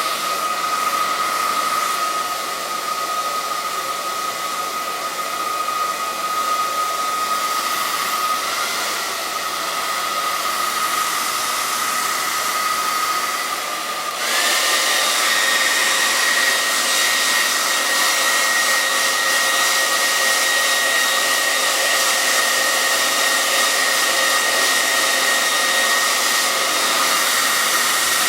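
Handheld hair dryer running steadily, blowing air with a constant whine. About halfway through the whine jumps suddenly to a higher pitch and the dryer gets louder.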